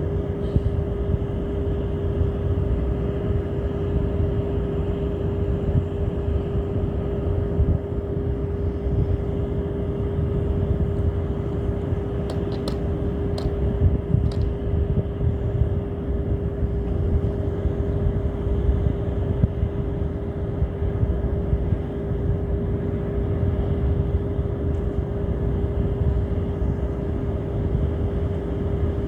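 A motor running steadily: a low rumble with a constant hum. A few faint clicks come about twelve to fourteen seconds in.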